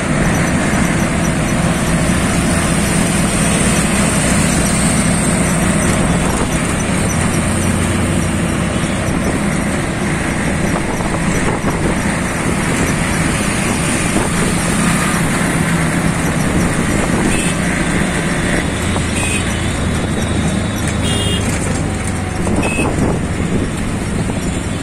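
Steady engine hum and road noise of a moving vehicle in city traffic, heard from on board. A few brief high tones sound near the end.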